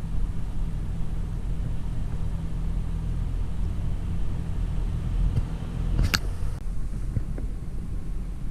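Heavy vehicle's engine running with a steady low rumble, with one brief sharp knock about six seconds in.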